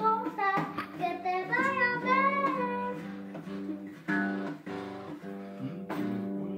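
A child singing along to a recorded song with strummed acoustic guitar and steady backing chords. The singing breaks off about three seconds in while the instrumental carries on.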